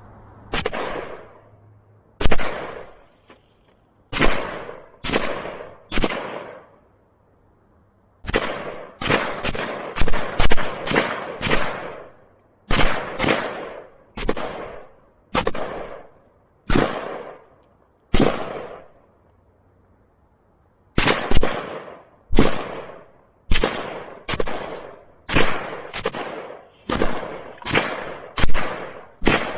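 Repeated gunshots, about thirty in all. A few come singly, then a quicker run of about eight shots in four seconds, then steady shots roughly a second apart.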